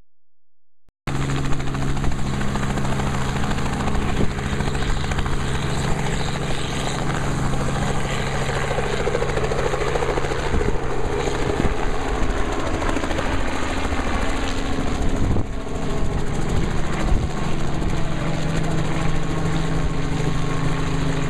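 Robinson R44 helicopter flying low overhead: the steady beat of its two-bladed main rotor with the engine beneath. It starts suddenly about a second in.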